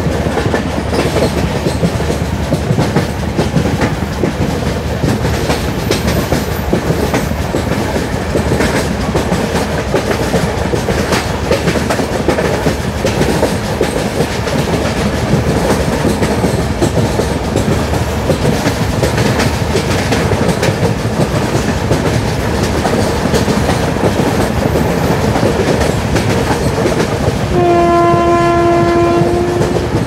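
Running noise of an LHB passenger coach at speed: a steady rumble with wheel-on-rail clatter. Near the end the WAG5A electric locomotive hauling the train sounds its horn once, a single steady note of about two seconds.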